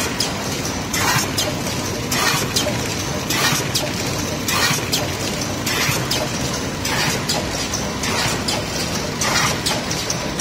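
Wet wipes packaging machine running, a steady mechanical noise with short hiss-like bursts about once a second, a little irregular.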